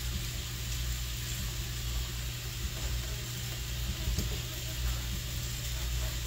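Pork chops frying in a skillet, a faint steady sizzle over a constant low hum, with one short click about four seconds in.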